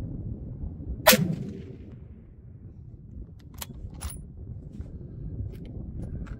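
A Bergara B-14 bolt-action rifle in 6.5 PRC fires a single shot about a second in, with a short ringing tail. About two and a half seconds later, two sharp metallic clicks come as the bolt is worked, over a low wind rumble.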